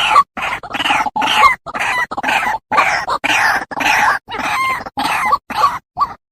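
White-breasted waterhen calling: a rapid run of loud, harsh croaking notes, about two to three a second, thinning near the end into a few short clipped notes.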